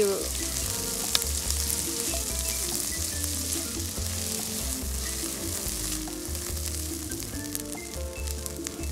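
Shallots, garlic and spring onions sizzling in hot sesame oil in a pan, with a slotted spatula scraping and stirring them around, a few small clicks where it knocks the pan.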